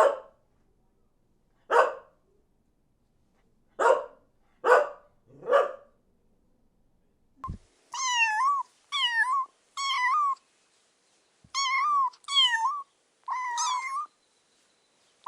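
A puppy barks five times, short single barks one to two seconds apart. Then, after a brief thump about halfway in, a kitten meows about half a dozen times, high calls that each rise and fall.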